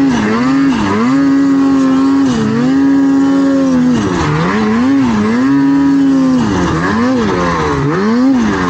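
Snowmobile engine running at high revs, its pitch dipping and climbing back several times as the throttle is eased off and reapplied; the dips come quicker near the end.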